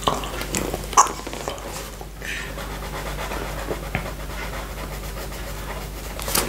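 Close-miked licking of buckwheat honey off a glass plate: wet tongue and mouth sounds with breathing, and a sharp click about a second in.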